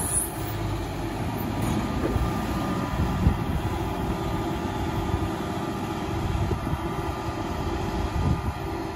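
Heavy farm machinery running steadily: the diesel engines of a wheel loader and of a tractor hitched to a feed mixer wagon.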